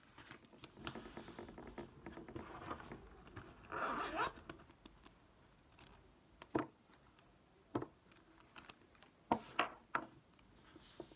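Quiet close-up handling noises: rustling and scratching for the first few seconds, loudest about four seconds in, then a handful of separate light clicks and knocks as things are picked up and set down.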